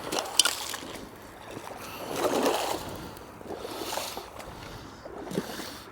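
Footsteps in wellington boots breaking through a thin ice crust into shallow floodwater, crunching and splashing in uneven bursts.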